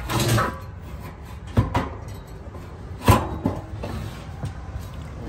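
Metal scraping and clanking as a squirrel-cage blower wheel is worked out of its galvanized sheet-metal housing. There is a scrape at the start, a sharp knock about a second and a half in, and the loudest knock about three seconds in, with a few lighter knocks after.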